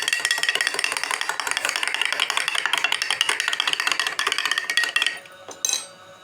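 Electric mixer grinder running with soaked almonds, dates and dry fruits rattling in the jar. It stops abruptly about five seconds in, then gives one short burst just before the end.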